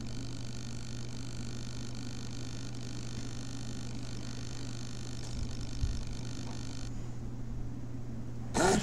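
Steady low electrical hum with a faint high-pitched whine of many tones over it; the whine cuts off about seven seconds in, and a loud sound starts abruptly just before the end.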